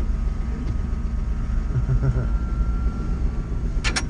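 Off-road vehicle's engine running with a steady low rumble, heard from aboard on a snowy road. Two sharp clicks come near the end.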